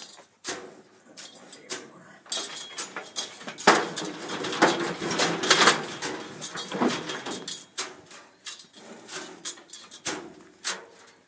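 Scuffling and a string of sharp knocks and rattles as a calf held in a metal headgate is handled by the nose. The busiest, loudest stretch comes in the middle, with scattered clicks before and after.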